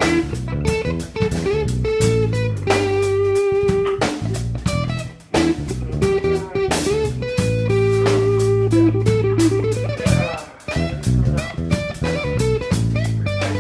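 Background music led by electric guitar, over low bass notes and a drum kit, with two brief breaks about five and ten seconds in.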